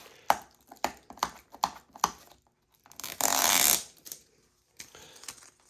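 A plastic DVD case being handled: a run of about six sharp clicks and taps, then a loud scratchy rustle lasting under a second, then faint handling noise.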